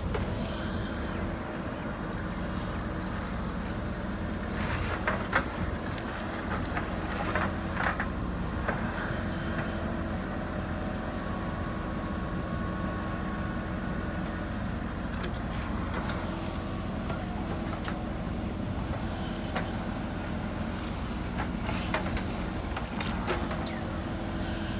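JCB backhoe loader's diesel engine running steadily at work, with a handful of short, sharp knocks scattered through.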